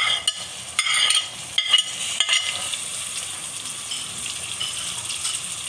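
Onions and ginger sizzling in hot oil in a metal wok as chopped tomatoes are spooned in from a plate, with a few spoon scrapes and clinks against the plate in the first couple of seconds, then a steady sizzle of frying.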